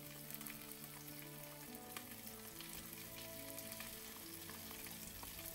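Prawns and a garlic clove frying gently in olive oil in a nonstick pan: a soft, even sizzle with faint crackles. Quiet background music of held notes plays under it.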